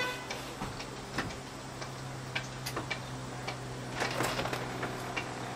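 Electric motor of a boat's powered engine-hatch lift running with a steady hum as the hatch raises, with scattered light clicks over it.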